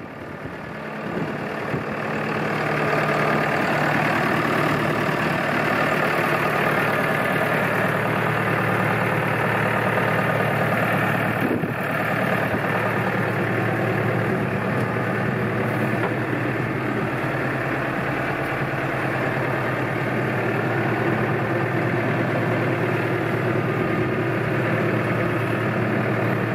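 Massey Ferguson 5440 Dyna-4 tractor's four-cylinder diesel engine idling steadily, heard from the cab. It grows louder over the first couple of seconds, then holds an even note.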